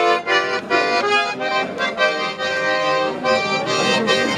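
Instrumental music: a melody over held chords, the notes changing every half second or so.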